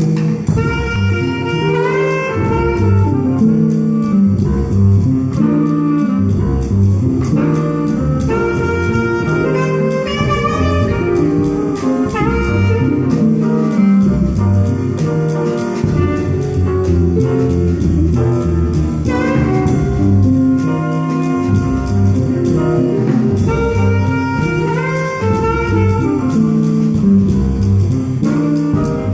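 Jazz with horns carrying the melody over a bass line and a drum kit, the cymbal keeping a steady beat.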